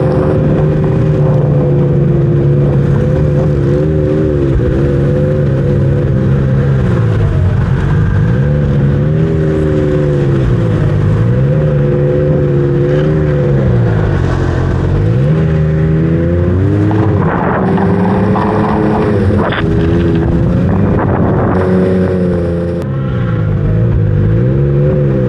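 Snowmobile engine running along a trail, its pitch dropping and climbing back several times as the throttle is eased off and opened again.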